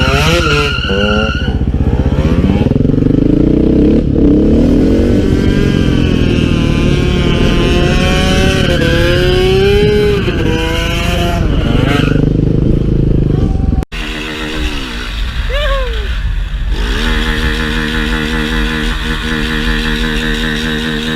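Motorcycle engine running under changing throttle, its note rising and falling repeatedly. About 14 seconds in it cuts off abruptly to a steadier, even engine note.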